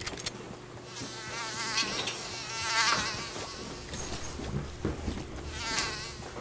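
A housefly buzzing close by, its wavering whine swelling and fading as it passes near three times.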